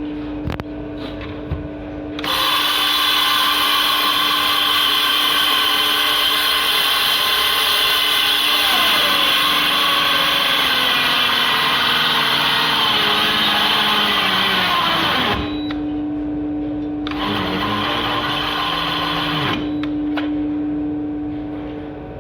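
Cordless drill boring into a concrete floor: a long run of about thirteen seconds, its motor slowing in the second half, then a shorter run of about two and a half seconds. The slowing comes from the battery running flat.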